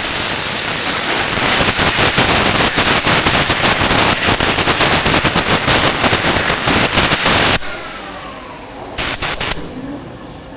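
A power tool running with a rapid hammering rattle for about eight seconds, then stopping suddenly; two short hissing bursts follow near the end.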